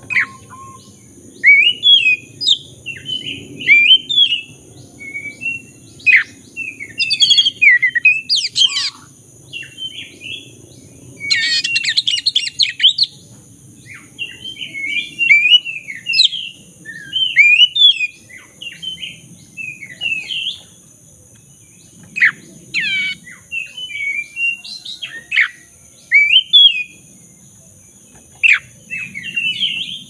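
Oriental magpie-robin (black-breasted kacer) in full, continuous song: a long run of varied whistled phrases, chirps and sharply falling whistles. A little over a third of the way in comes a rapid, harsh chattering run of about two seconds. Faint steady high tones sit underneath.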